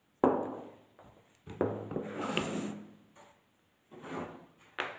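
Handling noises from a small plastic paint jar and paintbrush being picked up and opened: a sharp knock, another knock followed by about a second of rubbing, then a few light clicks near the end.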